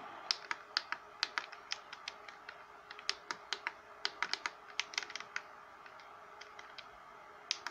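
Plastic push-button on a Blaupunkt Indianapolis CD34 car radio faceplate clicking as it is pressed repeatedly to step the tuning, about four clicks a second. The clicks stop about five and a half seconds in, with a couple more near the end, over a faint steady hiss.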